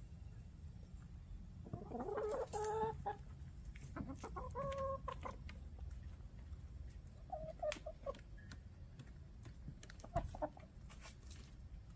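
Backyard hens clucking and calling: a longer run of calls about two seconds in, another about four seconds in, and a few short clucks later, over a low steady rumble.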